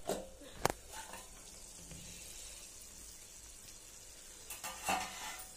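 Thick tomato chutney bubbling and sizzling as it simmers in a pan. A sharp clink sounds near the start as the steel lid is lifted off with a cloth, and there are a few louder bubbling pops near the end.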